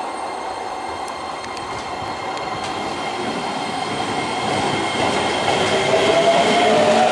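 JR 205 series electric train pulling away, with steady running noise from wheels on rail. From about five seconds in, a traction-motor whine rises in pitch and grows louder as the train accelerates. Thin, steady high squealing tones run through the first part.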